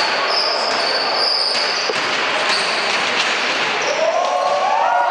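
Basketball being dribbled on a hardwood court amid sports-hall crowd noise, with high-pitched squeaks in the first two seconds. Voices rise near the end as a shot goes up.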